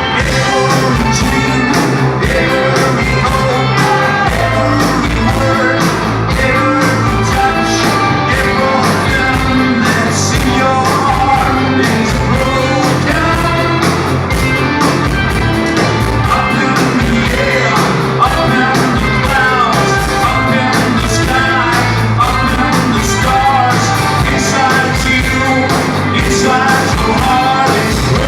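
Rock band playing live through a PA, with electric guitars, bass, drums and a singer all going at once.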